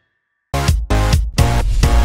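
Half a second of silence, then electronic dance music starts abruptly with a heavy, punchy beat.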